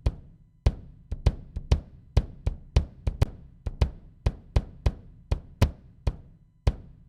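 Solo studio-mixed drum kit playing a groove: kick and snare hits with cymbal crashes, several strikes a second, with a short break about half a second in and another near the end.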